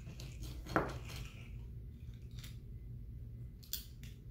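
Metal tongs clicking and tapping against a plastic cup of water as small plastic toy fish are picked out one at a time: a handful of scattered sharp clicks, the loudest a little under a second in.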